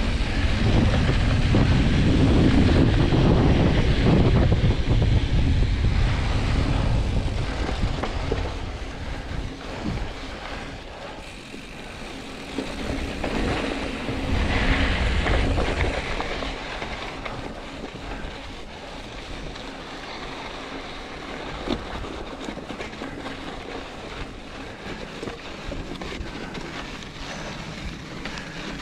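Wind rushing over the microphone of a camera on a moving mountain bike, with the tyres rolling over gravel and rock on a dirt trail. The wind is loudest for the first several seconds and again briefly about fifteen seconds in; in between and afterwards the tyre noise and small rattles of the bike come through more.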